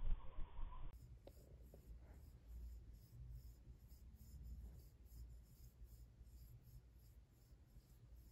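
Faint scratching and rubbing as a wire head massager is drawn through a dog's fur in repeated strokes.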